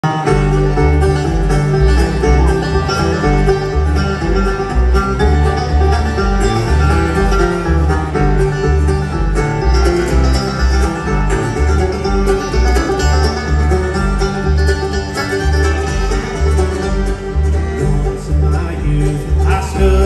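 Live bluegrass band playing an instrumental passage through the PA: strummed and picked acoustic guitars over an upright bass keeping a steady, even beat.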